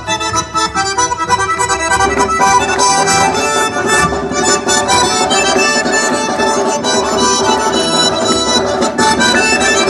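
Kabardian folk dance music led by accordion, with sharp percussion strikes, playing without a break.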